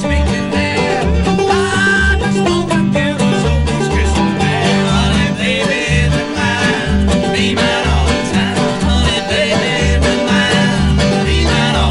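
Bluegrass string band playing live: acoustic guitar and upright bass, the bass plucking low notes in a regular beat under the tune.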